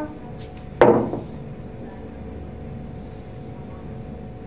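A large plastic bottle of orange drink set down on a tabletop: one sharp knock about a second in, with a short ringing decay, followed by a faint steady background hum.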